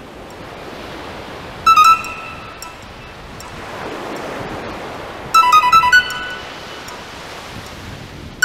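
Mobile phone ringtone, a short electronic melody, sounds twice in brief bursts, about two seconds in and again about five seconds in. Under it runs a steady wash of sea surf.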